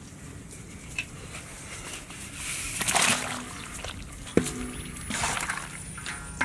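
A wokful of snakes tipped from a stainless steel wok into a large pot of steaming water: water splashing and sloshing, loudest about three seconds in. A sharp metal knock with a brief ring comes a little after four seconds, the wok against the pot.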